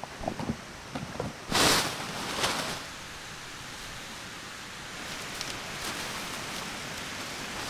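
Steady hiss of rain, with stiff, crinkly tent fabric being handled over it: a few short clicks and rustles in the first second, then a loud brief rustle about a second and a half in and a smaller one near two and a half seconds, as the ultralight Dyneema tent is pulled out and set up.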